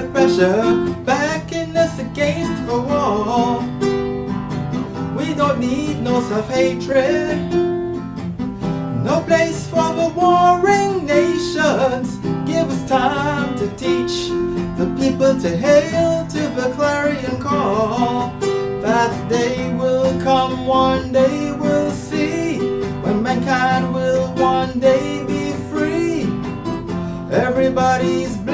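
A live song: an acoustic guitar strummed steadily, with a man singing over it in phrases.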